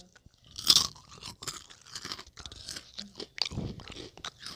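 Hot Cheetos being bitten and chewed close to the microphone: one loud crunch a little under a second in, then irregular crunching and chewing.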